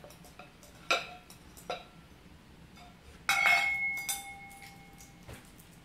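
A puppy pushing a stainless steel bowl across a hardwood floor with its muzzle: two light clinks, then a loud clang a little past three seconds in that rings on for over a second, and a last small knock near the end.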